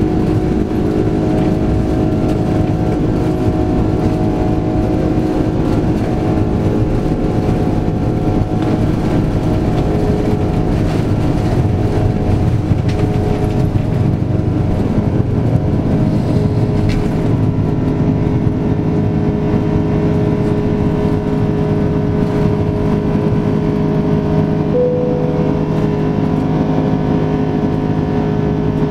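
Airbus A330-300 engines heard from inside the passenger cabin: a steady, loud jet drone with several held tones over a rumble of air and airframe noise.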